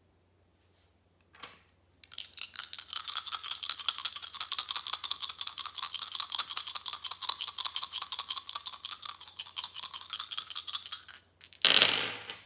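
A deck of tarot cards being shuffled by hand: a long run of rapid soft clicks and rustling, ending with a short, louder rustle near the end.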